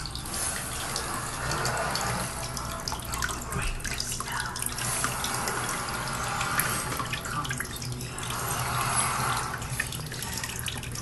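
Water running and trickling steadily, with small splashes and drips, as from a rainforest terrarium's water feature. It swells and eases several times.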